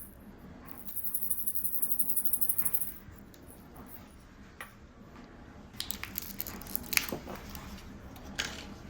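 A mystery toy package being shaken for about two seconds, with the figure inside rattling. A few sharp clicks and crinkles of the packaging being handled follow.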